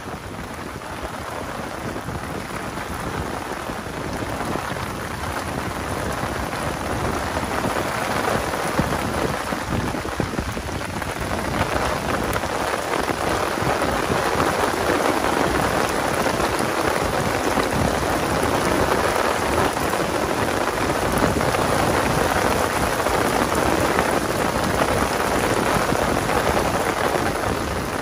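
Heavy rain falling on an umbrella overhead and on waterlogged ground, a dense steady rush that grows louder over the first ten seconds or so as the downpour picks up, then holds steady.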